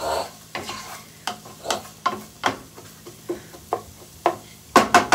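A spoon stirring diced potatoes, carrots and onions in a frying pan, scraping in regular strokes about two to three times a second, with a faint sizzle of the oil underneath. Near the end the strokes come quicker and louder.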